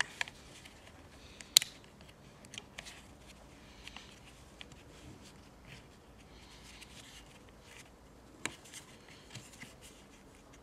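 Small clicks and scrapes of hands fitting the throttle linkage back onto a Stihl chainsaw's carburettor, with one sharp click about one and a half seconds in and another later on.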